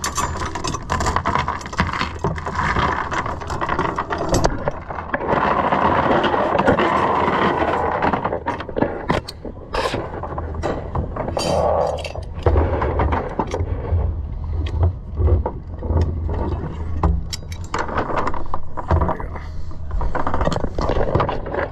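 Scattered metal clinks and scrapes as a grapnel anchor, its chain and the anchor-retrieval ring are handled on a boat's deck, over a steady rushing noise.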